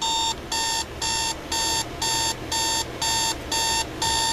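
KMC 500A digital alarm clock sounding its alarm: a single-pitched electronic beep repeating evenly about twice a second, each beep about a third of a second long. Not loud.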